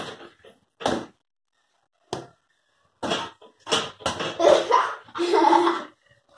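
A girl laughing, with a few short sharp knocks in between.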